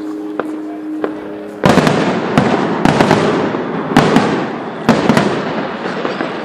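Aerial fireworks display: after a quieter start, a loud barrage of bursting shells sets in about a second and a half in. It is a dense crackle broken by sharp bangs roughly once a second, easing off near the end.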